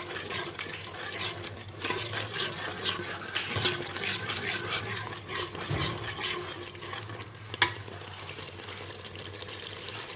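Tomato-and-spice masala frying in oil in a metal pot while a steel spoon stirs and scrapes against the pot, with one sharp tap of spoon on metal about three quarters of the way through. The masala is being roasted until the oil separates from it.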